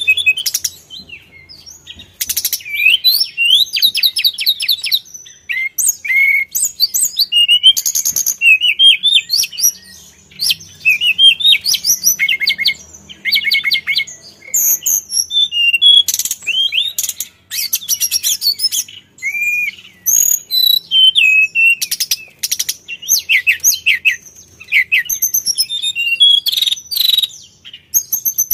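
Hill blue flycatcher singing a loud, varied song: rapid trills of repeated notes and sweeping whistles, phrase after phrase with brief pauses between them.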